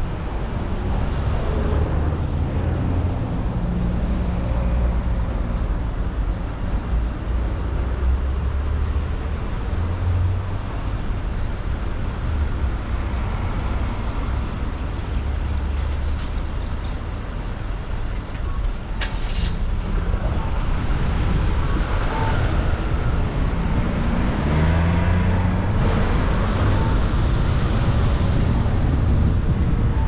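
Car driving through city traffic: steady engine and road noise, with the engine pitch shifting as the car speeds up and slows. There is a short sharp noise about two-thirds of the way through.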